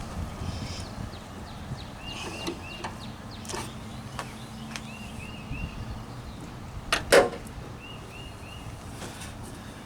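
Two sharp metal clicks close together about seven seconds in, with a few fainter ticks before them, from hand work on a Jeep Wrangler YJ tailgate latch and its retaining clip. Behind them a bird repeats a short three-note chirp about every three seconds.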